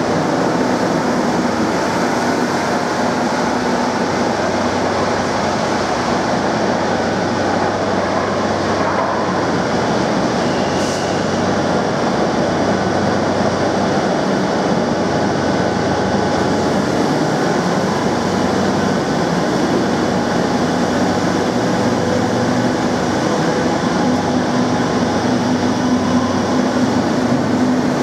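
Madrid Metro Serie 2000B train running into the station and coming to a stand, with a steady drone while it stands. Near the end it pulls away, its motor whine rising in pitch.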